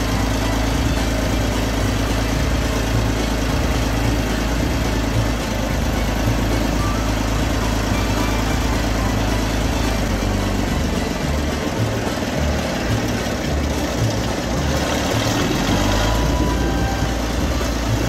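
Vintage crawler tractor's engine idling steadily. Its low rumble turns uneven about two-thirds of the way through.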